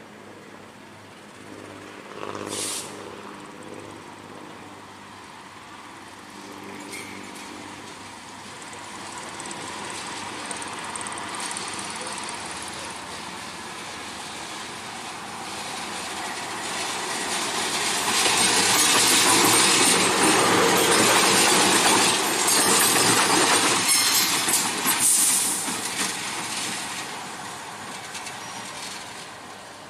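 Diesel locomotive running along the track, its engine and rolling wheels growing louder to a peak a little past the middle, then fading as it moves on.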